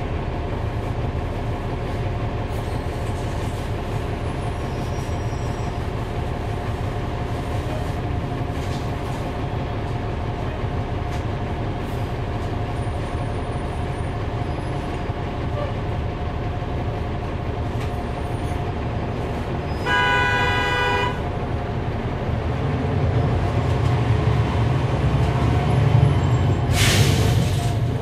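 A 2012 NABI 40-SFW transit bus's Cummins ISL9 diesel engine running steadily with road rumble, heard from aboard the bus. About twenty seconds in, a horn sounds for about a second; in the last few seconds the engine grows louder and a short hiss of air sounds.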